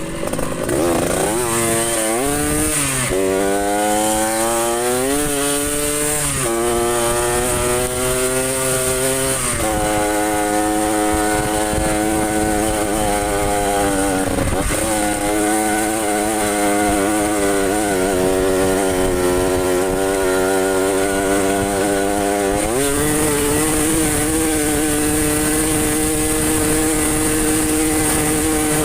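Trail motorcycle engine under way, its pitch climbing and dropping back several times as it accelerates and shifts, then running at a steadier speed with brief dips.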